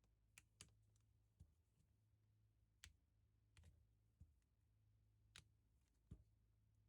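Small, sharp clicks and taps of hand tools and phone parts during smartphone disassembly, about eight irregularly spaced clicks, with a faint steady hum underneath.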